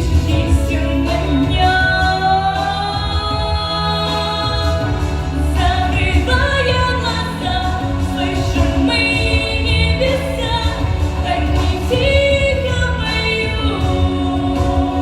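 A song: a sung melody of long held notes over instrumental backing with a steady bass.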